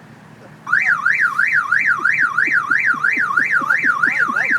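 Car alarm siren starting up under a second in, loud, its pitch rapidly sweeping up and down in a warble, about three sweeps a second.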